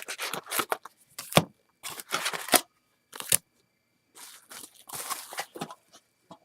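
Plastic wrapping being torn open and crinkled on a box of baseball card packs. It comes as sharp, irregular rips and crackles with short pauses between them.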